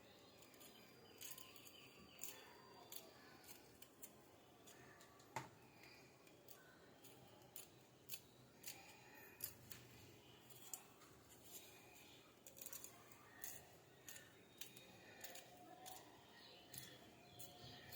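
Faint, irregular small clicks and snips, scattered every second or so through quiet room tone.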